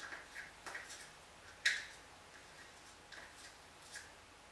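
A utensil scraping lime pulp off a manual citrus press: faint, scattered short scrapes and clicks, with one sharper click about a second and a half in.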